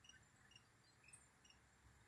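Near silence: faint background hum with a few tiny ticks.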